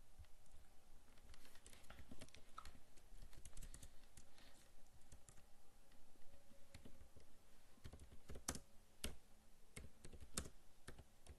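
Computer keyboard being typed on: faint, irregular key clicks, with a few louder keystrokes near the end.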